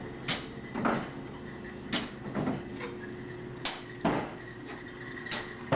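Sharp knocks and clatters, often in quick pairs about every second and a half, as the shelves of a Middleby-Marshall Model H revolving bagel oven are loaded, over the oven's steady machine hum.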